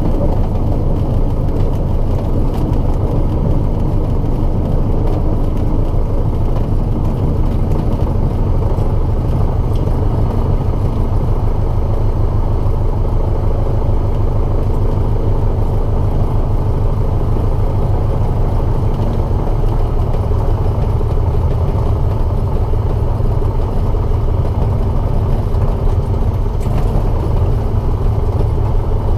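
Light single-engine piston airplane taxiing on the ground. The engine runs steadily at low power under a constant low rumble and grinding vibration, which the owner suspects comes from main landing-gear oleo struts at half their proper extension.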